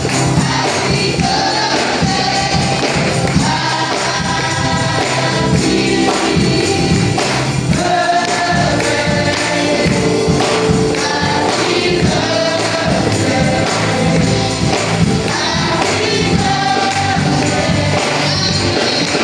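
Live gospel music: a woman singing lead into a microphone, with a group singing along, acoustic guitar and a steady percussive beat.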